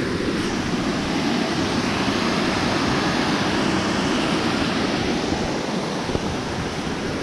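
Waterfall rushing: a steady roar of falling water.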